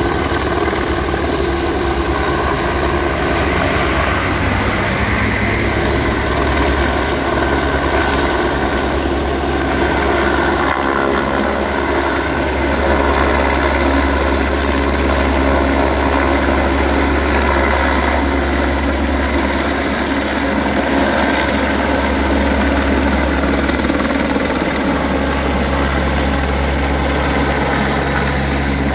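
Airbus AS350 B3 single-engine helicopter hovering and then climbing with a filled water bucket on a long line; its main rotor beats and its turbine whines, steadily throughout.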